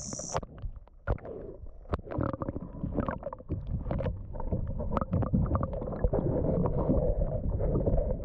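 Muffled underwater rumbling and sloshing, with many small knocks and clicks from water and handling, heard through a submerged camera's microphone. A high steady buzz cuts off abruptly a moment in as the camera goes under the surface.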